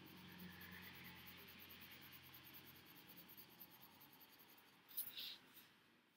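Pencil shading on paper, a faint scratching that fades over the first few seconds. About five seconds in, a couple of brief paper rustles as the sheet is turned on the table.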